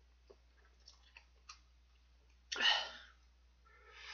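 Mouth sounds of a man eating very spicy instant noodles: a few faint clicks, then a short, loud breathy burst about two and a half seconds in, and a softer breathy sound near the end as he lifts the cup to his mouth.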